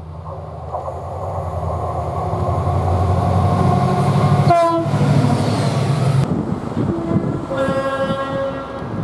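Diesel locomotive passing, its engine working hard with a heavy low rumble that builds over the first few seconds. A very short horn blip sounds about halfway through, and a horn blast of about a second comes near the end.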